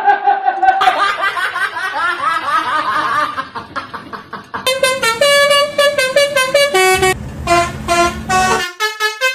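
Telolet-style multi-tone bus horn playing a tune. It starts with a quick run of overlapping sliding notes, then from about halfway gives a string of short, separate blasts at stepping pitches.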